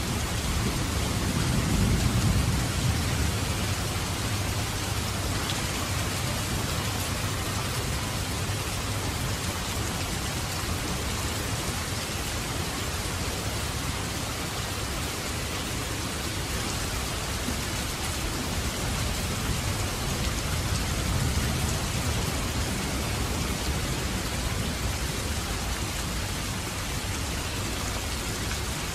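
Steady rain, an even hiss of falling drops, with a low rumble of thunder swelling about two seconds in and again around twenty seconds in.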